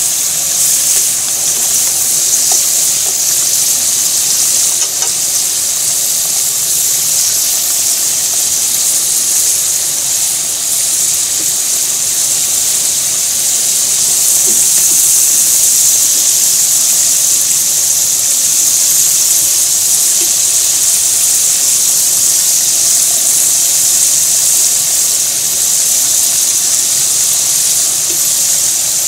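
Hot oil sizzling steadily as chunks of food deep-fry in a pan, a continuous high hiss of bubbling.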